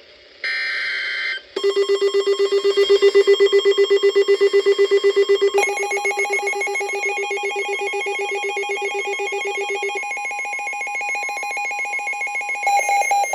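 Emergency alert receiver starting a new alert: a one-second burst of buzzy data noise, then a rapidly pulsing electronic alert tone that rattles like a ringing telephone. Its pitch steps up partway through.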